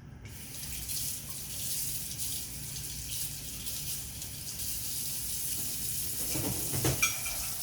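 Kitchen faucet running steadily into a sink, as dishes are rinsed during clean-up. A short louder sound comes near the end.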